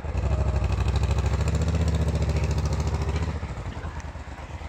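V-twin cruiser motorcycle engine running with an even, pulsing beat. About three and a half seconds in it drops to a lower level as the bike rides away.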